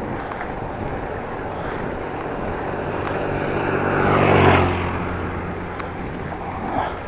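A motor vehicle passing close by: engine and tyre noise grow louder, peak about four and a half seconds in, then fade, over the steady rush of the ride.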